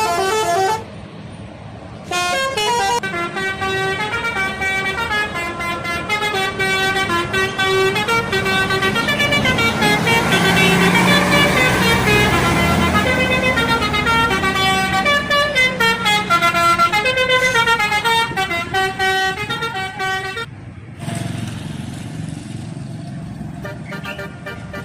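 Bus telolet horn playing a long melody of stepping multi-tone notes, with vehicle noise swelling around the middle; the horn stops about twenty seconds in, leaving a lower vehicle rumble.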